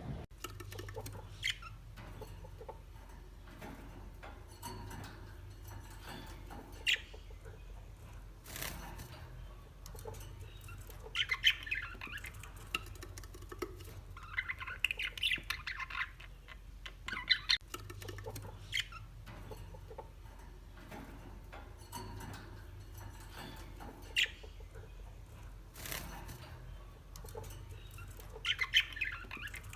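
Birds calling in several short clusters of quick, high calls, with scattered sharp clicks between them over a low steady hum.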